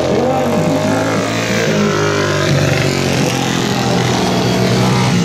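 Several flat-track racing motorcycles' engines running hard, their pitch repeatedly rising and falling as the riders open the throttle and back off through the turns.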